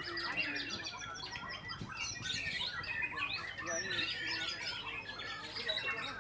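White-rumped shamas singing: a dense, unbroken stream of quick whistles, trills and chirps.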